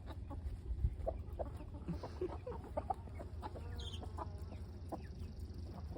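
Broody hen clucking: a run of short, low clucks, the constant muttering talk of a hen gone broody, with a longer call just before the end.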